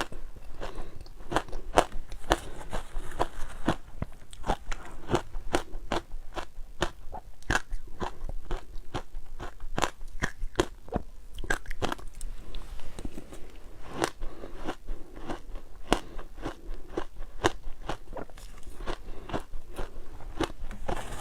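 Ice being bitten and chewed: a steady run of sharp, irregular crunches and cracks, several a second.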